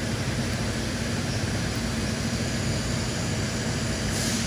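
TIG welding on mild steel: a steady electric hum and hiss from the welder and its arc. The hiss brightens briefly near the end.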